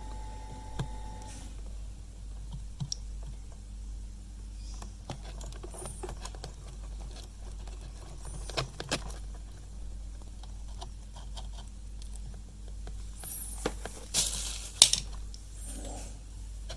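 Scattered light clicks, taps and scrapes of small tools and parts being handled, with a louder cluster of rattling scrapes about 13 to 15 seconds in. A steady low hum runs underneath.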